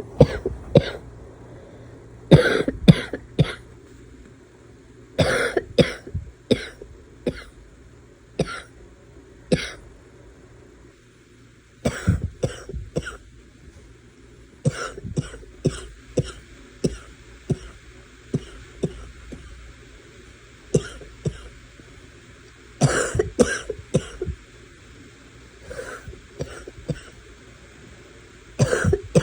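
A person's barking cough, coming in fits of several short, sharp coughs every few seconds.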